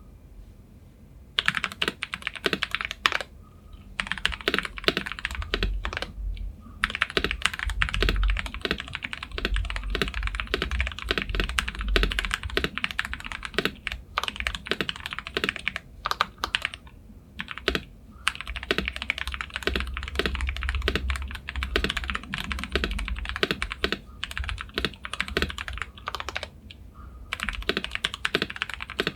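Fast typing on a KBD67 Lite mechanical keyboard with Krytox 205g0-lubed Gateron Ink Yellow linear switches and a Boba U4T spacebar: a dense run of key clacks that starts about a second and a half in and breaks off for a few short pauses.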